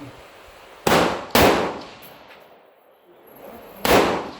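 AR-15 with a 16-inch barrel and muzzle brake firing three 5.56 rounds: two shots about half a second apart, then a third about two and a half seconds later.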